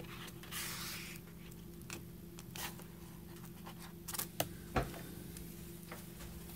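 Faint handling noises of hands on a sketchbook and nearby things: a brief rustle of paper about half a second in, then a few light clicks and taps a little after four seconds in, over a steady low hum.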